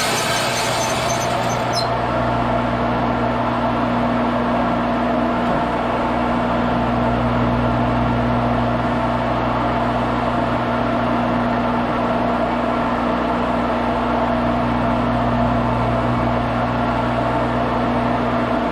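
Portable bandsaw mill running steadily, its engine and blade making a loud, even drone with a low hum. A bright hiss on top fades out about two seconds in.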